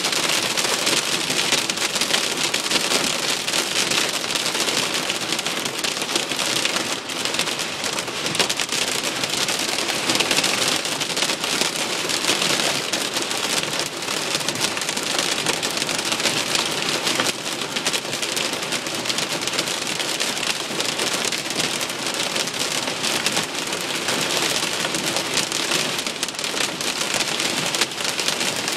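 Heavy rain beating on a car's roof and windshield, heard inside the cabin as a loud, steady, dense patter of countless drops.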